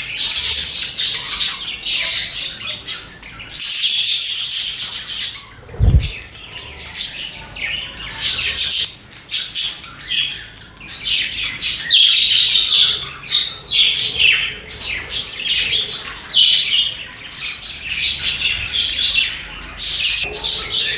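A group of budgerigars chirping and chattering, a dense run of quick, high, overlapping calls with a few harsher squawks. A brief low thump comes about six seconds in.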